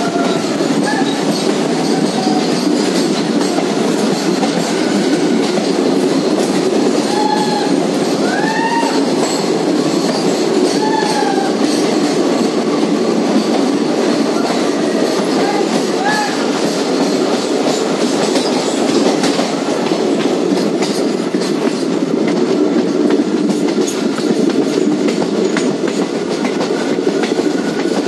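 A train running through a tunnel, heard from inside a carriage: a loud, steady rumble of wheels on rail with rail-joint clicks. Short squeals rise and fall every few seconds, the wheels squealing against the rails.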